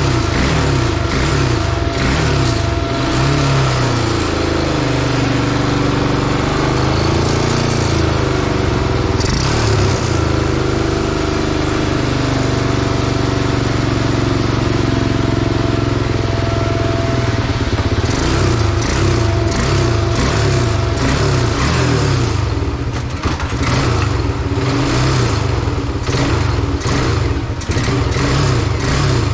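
Honda TRX300EX ATV's single-cylinder four-stroke engine running and revving, its pitch rising and falling over and over, then held higher and steadier through the middle before the rising and falling returns near the end.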